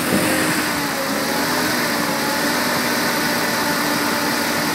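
Street-ported Mazda 13B two-rotor rotary engine with a Weber IDA carburetor running just after its first startup, with no idle speed set yet. A brief change in revs at the start, then it runs steadily.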